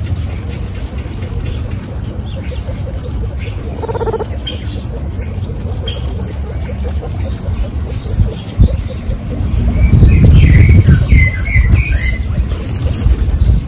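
Guinea pigs chewing carrot ribbons: a steady run of quick, crisp little crunching bites. A short pitched call about four seconds in, a low rumble around ten seconds in, and a few high chirps near the end.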